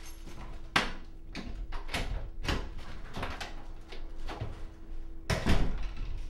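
Apartment front door being handled, opened and pulled shut: a run of clicks and knocks from the lock, handle and door, with the loudest knock about five and a half seconds in as it closes. A faint steady hum sits underneath.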